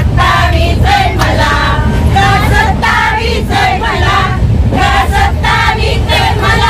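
A group of women singing together and clapping along, over the steady low rumble of the moving train.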